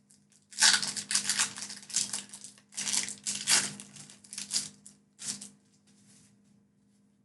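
Foil Pokémon booster-pack wrapper being torn open and crinkled, a run of crackling, rustling bursts that stops about five and a half seconds in.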